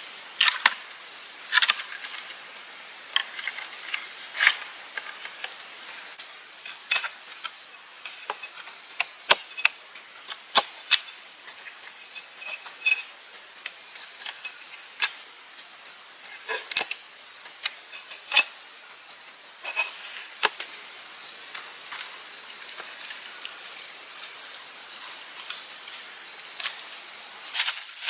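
Steady high-pitched chirring of insects, with irregular sharp clicks and knocks over it.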